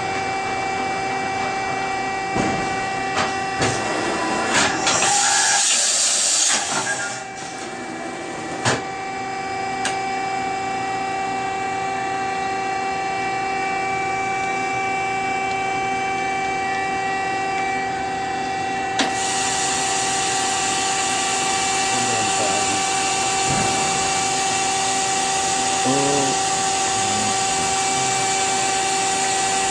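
Okuma MF-46VB vertical machining center running with a steady multi-tone whine. Clicks and knocks come in the first ten seconds, with a short loud hiss about five seconds in, and a steady hiss joins about nineteen seconds in.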